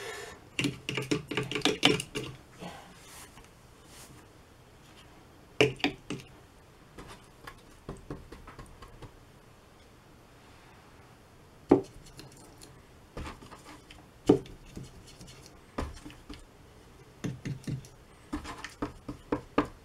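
A paintbrush clicking and tapping against a watercolour paint box and its mixing wells as paint is picked up. The taps come in scattered groups: a cluster at the start, single taps through the middle and another cluster near the end, with quiet stretches between.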